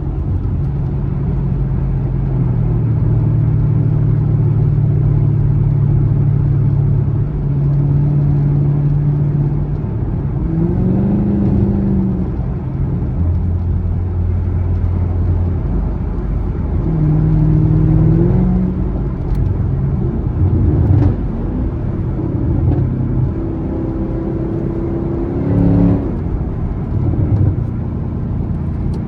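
Camaro SS's 6.2-litre V8 running on the move: a steady drone at first, then rising in pitch several times as it accelerates, settling lower in between.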